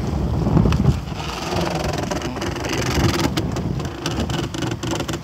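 Wind buffeting the microphone over the wash of the sea around a small wooden sailing boat, with a few short knocks near the end.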